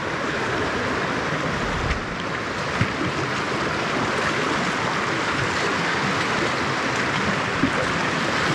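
Steady rush of a small stream running over a rapid.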